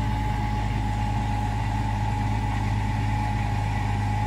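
Mini tractor's engine running steadily while pulling a rotavator through the soil between sugarcane rows. A steady high whine rides over the low engine hum.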